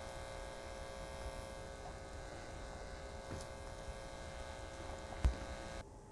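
Steady buzzing hum of a small cooling fan running on a powered-up computer test bench. There is a single sharp click shortly before the hum cuts off suddenly near the end.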